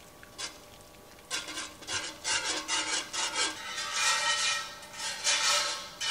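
Wire whisk scraping around the inside of a cast iron skillet in quick repeated strokes, about three a second, starting a little over a second in, as cold butter is whisked into a pan sauce.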